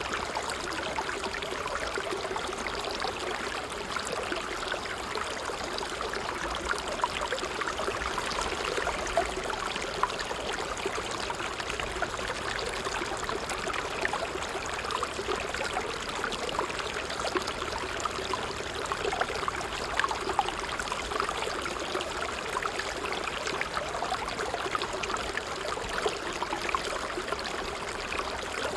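Water trickling and splashing steadily in a small stream, with many small drips and bubbling flecks over an even rush.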